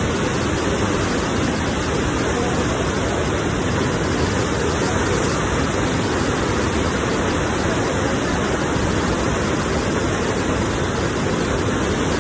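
Ocean surf making a steady, unbroken rush of water noise, with no separate wave crashes standing out.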